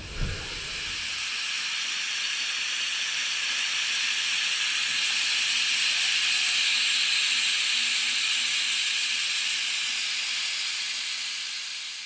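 A steady hiss that swells over the first few seconds, holds, and fades away near the end.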